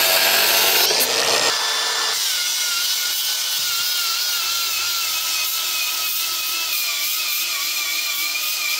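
Cordless angle grinder with a cut-off disc cutting through steel. It starts with a hissing grind, then about two seconds in settles into a steady high motor whine whose pitch wavers slightly as it bites. It holds its speed under the cutting load without cutting out while running on a DeWalt-compatible 20V 5.0Ah battery.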